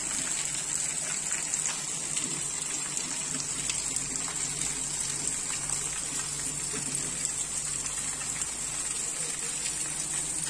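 Heavy monsoon rain pouring down onto wet, puddled ground: a steady rushing hiss dotted with the ticks of individual drops.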